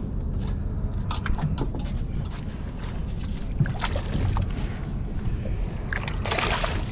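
A hooked pickhandle barracuda splashing at the surface beside the boat and being scooped into a landing net, with a loud burst of splashing about six seconds in, over a steady low rumble.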